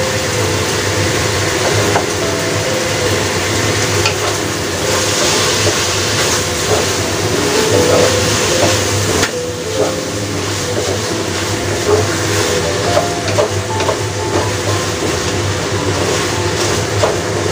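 Snow peas and baby squid sizzling in a stainless steel wok, stirred with a wooden spatula that knocks and scrapes against the pan now and then.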